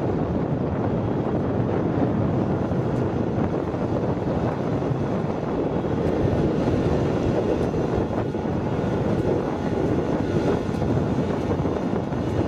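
Engine of a riding rice transplanter running steadily while the machine plants seedlings in a flooded paddy.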